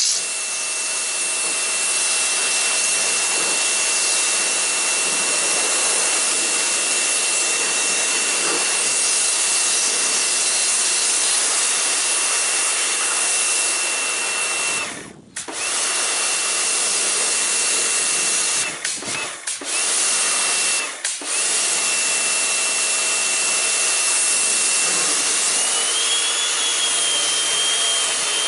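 Pressure washer spraying a jet of water onto an old cylinder lawnmower, a steady hiss with a thin high whine running through it. It cuts out briefly about halfway through and a few more times a few seconds later as the trigger is let go, and the whine rises slightly in pitch near the end.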